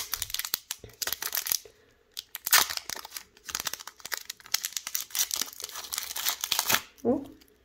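Foil wrapper of a Pokémon trading card booster pack crinkling and being torn open by hand: a run of crackly rips and rustles, with a short pause about two seconds in.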